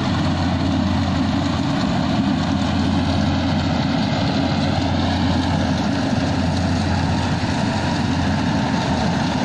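Rice combine harvester running steadily while it cuts the standing paddy, an even engine drone with no change in level.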